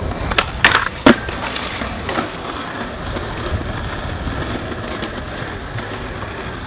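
Skateboard wheels rolling on smooth stone paving, with a few sharp clacks of the board in the first second, the loudest about a second in, then steady rolling as the skater holds a manual.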